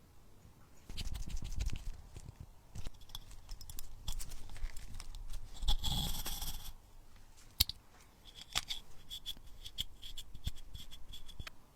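Small metal parts of a table lighter being handled and fitted together by hand: scattered light clicks and taps, a short scrape about halfway through, and a quick run of small high ticks near the end.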